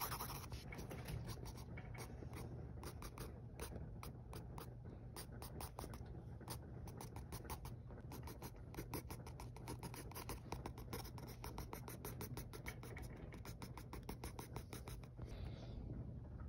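Pencil scratching on paper in quick, short hatching strokes, about four or five strokes a second, faint.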